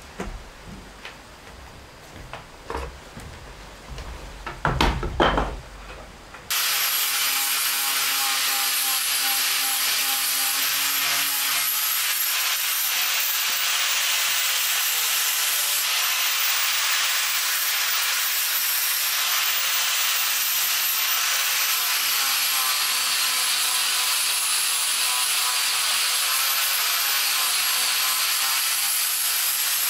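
A few scattered clicks and knocks, then from about six seconds in a corded angle grinder with an abrasive disc grinding steadily into a wooden beam, a loud even grinding with a thin high motor whine over it.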